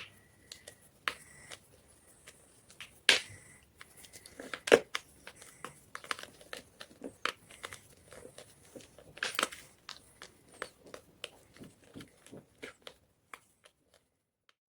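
Block of white gym chalk crunching and crumbling in irregular crackles and snaps, with sharper cracks about three, four and a half, and nine seconds in. The crunching thins out and stops near the end.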